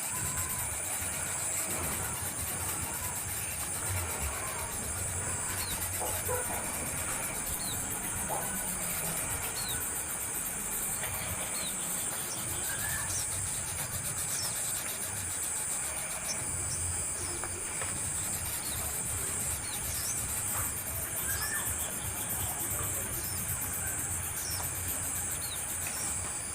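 Steady, high-pitched pulsing insect buzz, with scattered short bird chirps throughout.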